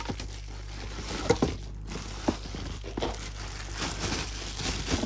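Bubble wrap and plastic packaging crinkling and rustling as it is handled and pulled off the speakers, with a few sharp crackles.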